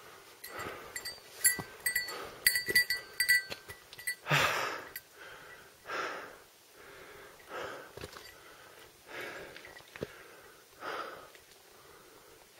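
A hiker's heavy breathing while climbing a steep trail, a hard breath every second or so, the strongest about four seconds in. Small high metallic clinks, like a little bell jingling, ring during the first few seconds.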